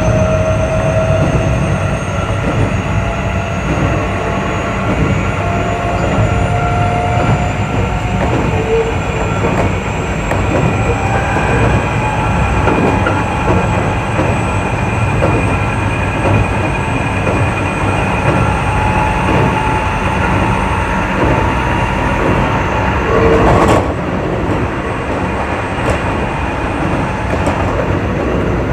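Keio 8000 series electric train running: a steady rumble of wheels on rail, with thin motor whines slowly climbing in pitch. A brief louder burst about 23 seconds in.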